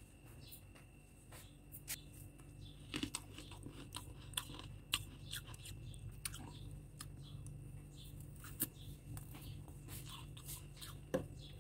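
Close-up crunching and chewing of soft freezer frost: an irregular run of small crisp crunches and clicks, with a handful of louder crunches spread through.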